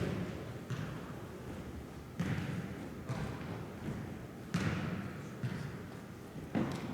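Jokgu ball being kicked and bouncing on the court: a series of sharp thuds spaced irregularly, one to two seconds apart.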